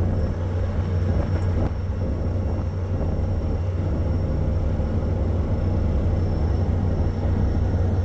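Ship's engine running with a steady low rumble.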